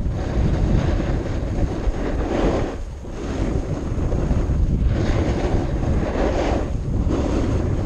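Wind rushing over the microphone, a loud steady noise that swells and eases every second or two.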